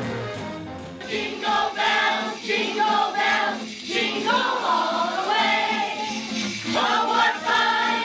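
A school jazz band's music fades out in the first second. Then a group of children sings a Christmas carol together, with small jingle bells shaken along.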